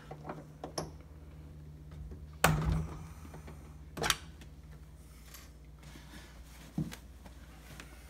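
A few sharp knocks and clicks from handling a dishwasher drawer's front panel as it is worked loose, the loudest about two and a half seconds in, another about a second and a half later, over a steady low hum.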